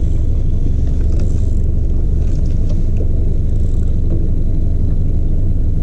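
Boat motor running at trolling speed, a steady low rumble, with a few faint light clicks.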